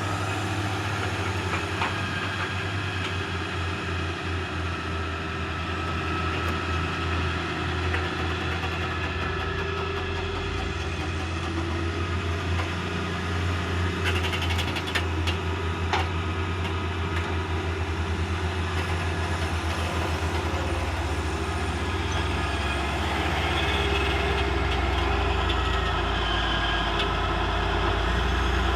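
Engine of a heavy vehicle running steadily, with a few sharp clicks midway and a slight rise in loudness near the end.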